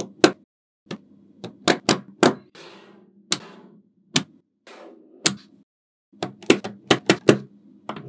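Small magnetic balls clicking sharply together as they are snapped into place one at a time. There are about fifteen irregular clicks, coming faster in a quick run near the end.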